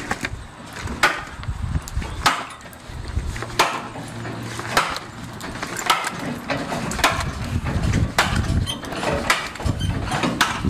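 A heavy cleaver chopping into the backbone of a hanging beef carcass: repeated sharp chops of the blade striking meat and bone, about one a second.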